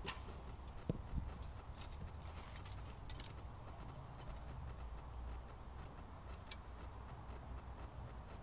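A sharp snap of a bowstring released at a thrown clay target, followed about a second later by two dull thumps. Scattered light clicks follow as the next arrow is handled and nocked, over a low wind rumble on the microphone.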